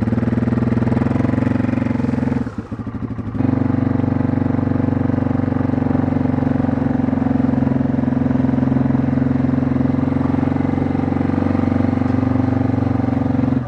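Small gasoline engine running steadily at a constant speed. It eases off for about a second, a couple of seconds in, then comes back up and runs on.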